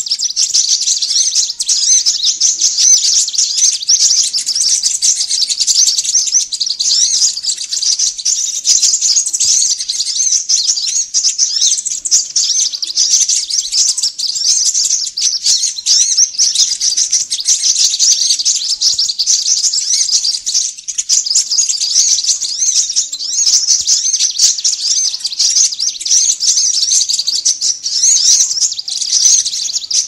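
A dense, unbroken chorus of high, rapid chirps from many small birds calling agitatedly together. It is a bird-lure recording made to draw small wild birds such as konin.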